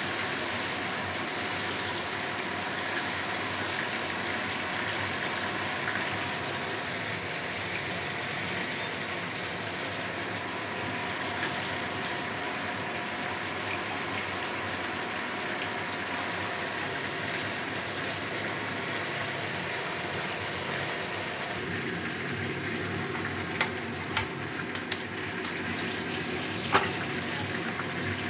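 Chicken pieces frying in hot oil in a nonstick kadai, turned with a wooden spatula: a steady sizzle throughout. A few sharp knocks come near the end.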